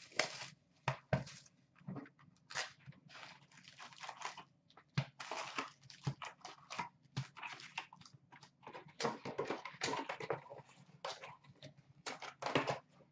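Plastic shrink wrap crinkling and tearing as it is stripped off a hockey-card hobby box, then the cardboard lid opening and foil card packs rustling and clicking as they are handled and stacked, in uneven bursts.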